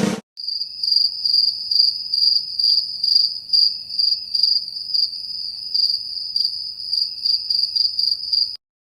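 Crickets chirping: a steady high-pitched trill with repeated chirps over it, cutting off abruptly near the end.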